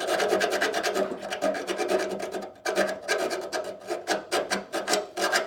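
Hand file rasping in quick, even strokes across a weld bead on a steel door hinge, with a short pause about two and a half seconds in: the added weld is being filed down to tighten the worn hinge.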